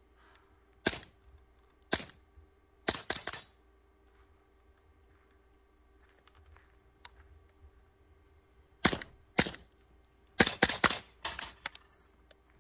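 Suppressed .22 LR rifle firing subsonic rounds through a JK Armament 105LT rimfire suppressor: sharp cracks, with the steel spinning target ringing on the hits. Two single shots, then a quick string about three seconds in; after a pause, two more shots and a faster string near the end.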